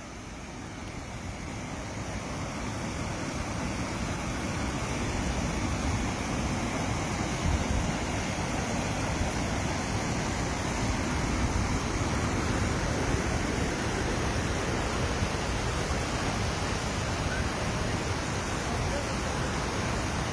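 Rushing river water, a steady roar that grows louder over the first few seconds and then holds.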